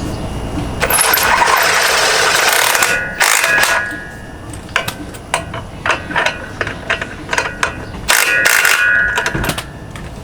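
Hand ratchet wrench working: two longer spells of rapid ratcheting, about a second in and again near the end, with a string of separate sharp clicks in between.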